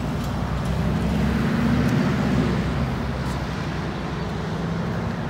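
Cars driving past at close range, engine and tyre noise swelling about a second in and then easing off as they move away.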